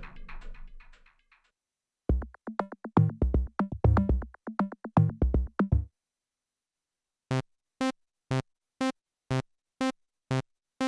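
Korg Minilogue XD synthesizer factory presets playing. A previous patch's sound fades out over the first second or so, then a run of short, punchy notes with heavy bass follows for about four seconds. After a short gap, a single short note repeats about twice a second on the same pitch.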